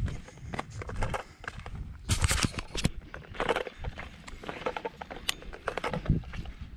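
Footsteps crunching on dry, gravelly ground: irregular scuffs and crunches of a person walking, with a few sharper knocks.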